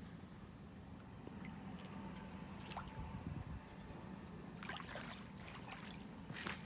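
Faint water trickling and lapping at the river's edge over a steady low hum, with scattered crackling clicks that grow more frequent about two-thirds of the way through.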